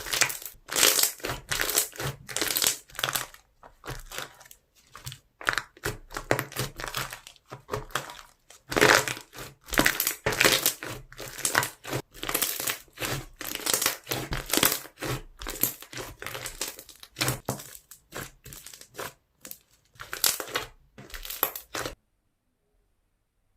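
Pastel foam slime (floam) being squeezed and pressed by hand, giving crunchy, crackling squishes in irregular bursts. It cuts off abruptly near the end.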